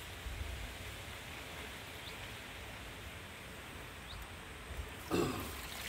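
Water running steadily from an outlet at a ground-fed water source, with decent flow but weak pressure, heard as a low even rush. A brief louder sound comes about five seconds in.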